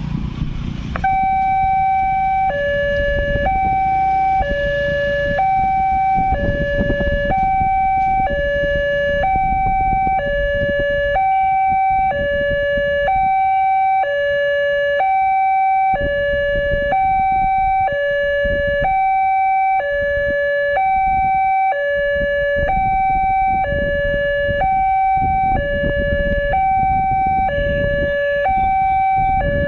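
Railway level-crossing warning alarm sounding: an electronic two-tone signal that alternates between a higher and a lower note, each held about a second, starting about a second in and repeating steadily. It is the warning that a train is approaching the crossing.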